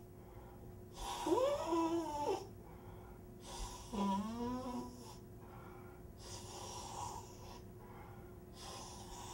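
A man weeping into his hands: two long, wavering sobs, about a second and about four seconds in, with breathy gasping between and after them.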